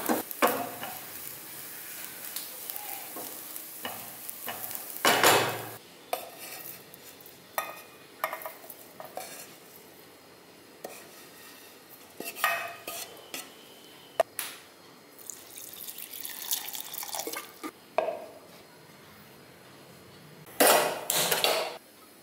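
A spatula stirring and scraping grated coconut and onion as they dry-roast in a pan, then scraping the roasted mix out of the pan into a steel container, with scrapes and clatters of utensils on metal cookware. The loudest clatter comes near the end.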